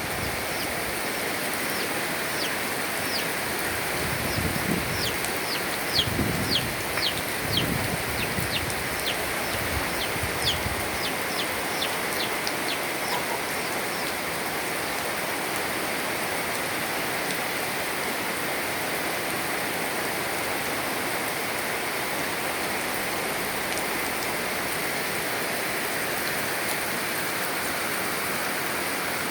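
Heavy rain falling steadily. During the first dozen seconds a bird gives a quick run of short, high, falling chirps, with a few low thuds among them.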